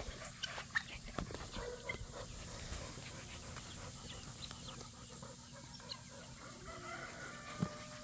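A flock of chickens foraging and clucking softly, with scattered short calls.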